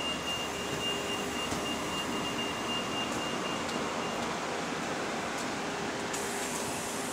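A bus's electric cooling fan running with a steady rushing noise. A high steady whine sounds over it and stops about four seconds in.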